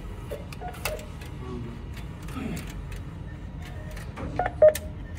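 Bank ATM with a steady low hum and scattered light clicks, and one short electronic beep about four and a half seconds in while the machine waits for a passbook or card.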